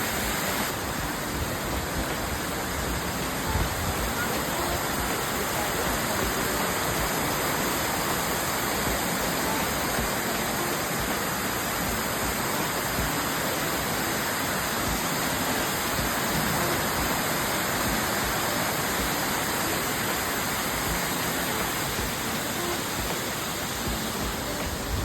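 Steady, even rush of Amicalola Falls, a tall mountain waterfall, falling water heard close by.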